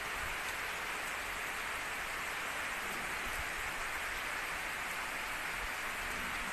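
Heavy rain falling steadily, an even hiss of the downpour that neither builds nor fades.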